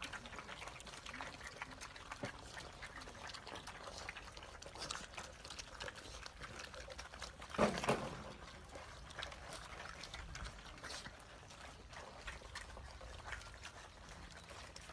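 A litter of puppies eating together from a metal pan: a busy run of small wet chewing and lapping clicks, with one brief louder burst about halfway through.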